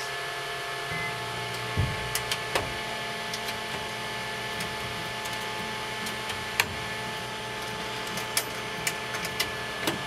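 Homemade microwave oven built from the internals of several microwaves running, a steady electrical hum with several steady tones, broken by scattered short clicks.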